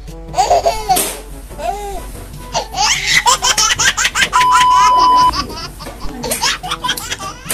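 High-pitched laughter over background music, with a steady beep lasting about a second a little past the middle.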